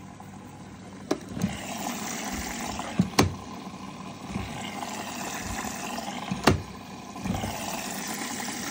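Bosch front-loading washing machine with water running and sloshing in the drum, a steady rushing that grows louder about a second in. Four sharp clicks and knocks cut through it as the plastic detergent drawer is handled and pulled open.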